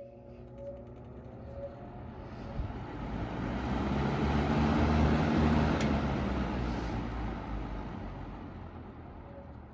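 A road vehicle passing by: its noise rises to a peak about five seconds in and then fades away.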